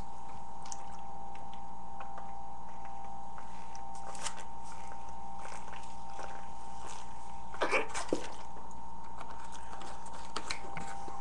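A steady electrical hum with a few faint clicks and rustles, the clearest a short cluster about eight seconds in.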